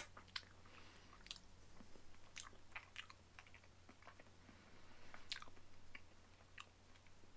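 A person quietly chewing a mouthful of smoked beef short rib: faint, scattered mouth clicks, with one sharp click right at the start.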